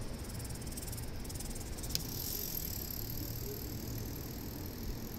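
Insects chirping: a fine, rapid high buzz at first, then a steady high-pitched trill from about two seconds in, over a low steady rumble. A single sharp click about two seconds in.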